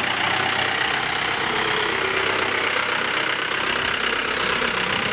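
Jeep engine running steadily, an even, unchanging engine and road noise over a low hum.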